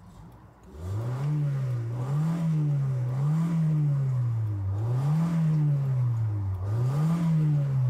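Honda F23 four-cylinder engine, running on neat oil-treatment additives instead of motor oil, revved up and down in an even rhythm about once a second, starting about a second in.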